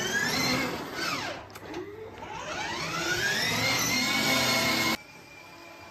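Electric drive motor of a children's battery-powered ride-on toy car whining as it drives: the pitch rises as it speeds up, dips, then rises again and holds steady. It drops suddenly to a faint whine about five seconds in.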